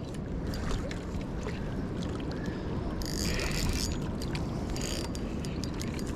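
Wind rumbling on the microphone, with scattered small clicks and a brief rustle about three seconds in.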